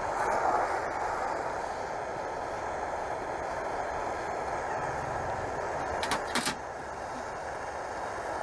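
Steady hissing rush of a gas soldering iron's burner flame as it heats and solders a seam in a copper gutter. A couple of short sharp clicks come about six seconds in.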